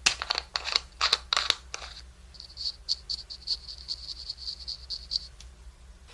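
Small makeup brush tapping against the plastic lid of a loose glitter powder jar. A few louder clicks and taps come first, then about two seconds in a fast, even run of light taps lasts about three seconds.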